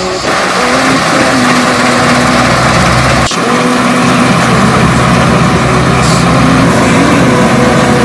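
New Holland CX5.90 Hillside combine harvester running under load while cutting and threshing wheat: a steady engine drone inside a dense mechanical noise. The sound breaks off briefly about three seconds in and resumes at the same level.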